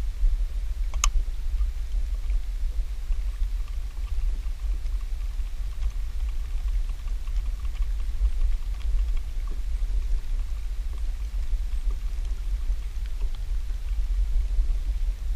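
Steady low wind rumble buffeting an action camera's microphone, with faint scattered ticks and one sharp click about a second in.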